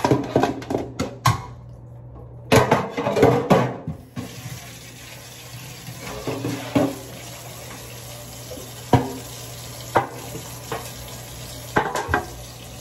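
A metal baking pan clatters and knocks against a stainless steel sink, then about four seconds in the kitchen tap is turned on and runs steadily while pork chops are rinsed by hand under it, with a few sharp knocks of the pan.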